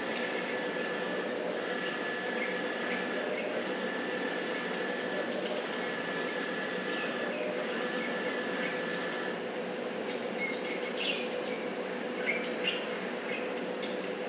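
Steady hum of a room air conditioner with two steady tones in it. A few short, high chirps from a fledgling budgie come in the last few seconds.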